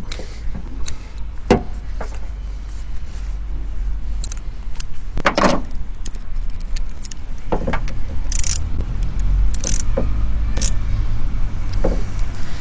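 Metal clinks and knocks of tools and parts being handled while fitting a heater circulation pump, over a steady low rumble, with a longer scrape about five seconds in and two short hisses later on.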